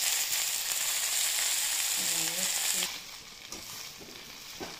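Fresh gongura (sorrel) leaves sizzling in hot oil in a kadai. The sizzle falls off sharply about three seconds in. A metal spatula scrapes and knocks against the pan a few times as the leaves are stirred.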